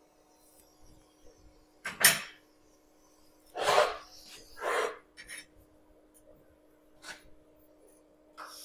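Handling noise in a pause between TIG welding passes: a few short knocks and rustles, the loudest about two and four seconds in, over a steady faint hum. Right at the end the TIG arc strikes again with a sharp crack.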